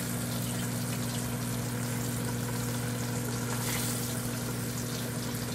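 Steady low hum of a running microwave oven under the even sizzle of chicken strips frying in a pan of hot oil.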